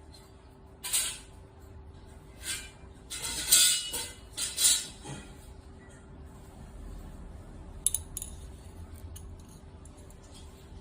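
Handling noise of a small metal-and-ceramic flame rod: a few short clinks and scrapes in the first half, then two sharp clicks about eight seconds in, over a faint steady hum.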